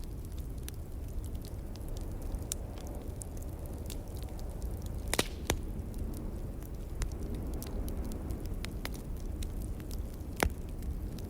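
Burning logs crackling in a fireplace: scattered sharp pops and ticks, a few louder ones about five seconds in and near the end, over a steady low rumble.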